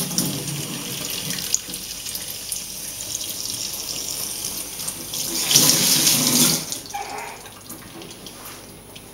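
Kitchen tap running into a stainless steel sink and over hands being rubbed together under the stream. The water gets louder for about a second just past the middle, then runs quieter near the end.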